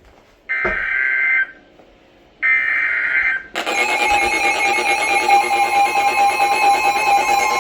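Emergency Alert System signal: two bursts of warbling SAME data-header tones, each about a second long, announce a new alert. About three and a half seconds in, a loud, steady attention tone begins and holds.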